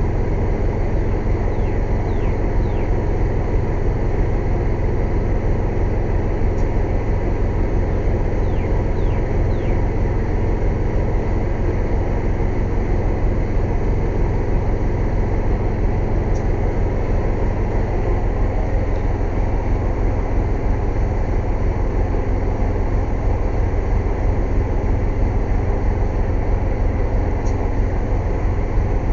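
Air compressor running steadily, a loud low rumble with a fast even pulsing.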